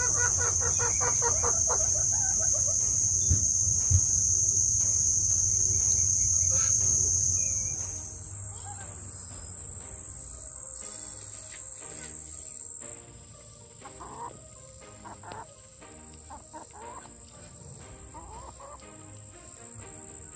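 Steady high-pitched insect chorus that drops to a quieter, thinner buzz about eight seconds in, with a chicken calling near the start and scattered smaller calls later.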